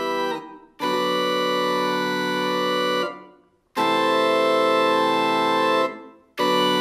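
Casio DG-20 electronic MIDI guitar playing an organ-like preset through its built-in speakers. Sustained chords are held about two seconds each with a slowly wavering tone, and each fades out into a short silence before the next, three in all.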